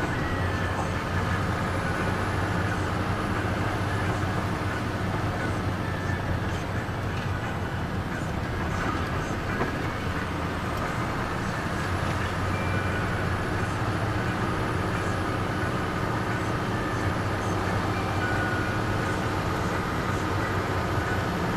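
Steady engine and road noise of a car heard from inside its cabin while it drives along, an even low drone with no change in speed.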